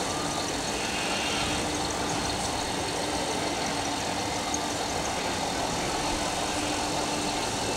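Steady background noise of a large exhibition hall, with a low steady hum that breaks off and resumes several times.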